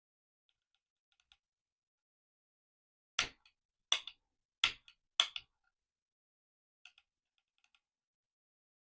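Four sharp metallic clicks about two-thirds of a second apart, with a few faint light clicks before and after, from parts being worked during AR-15 lower receiver assembly.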